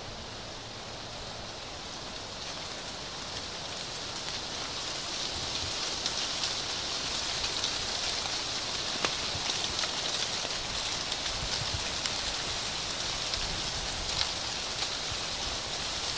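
Dry autumn leaves rustling in the wind and pattering down onto a leaf-covered path: a steady hiss that grows louder over the first several seconds, with scattered light ticks.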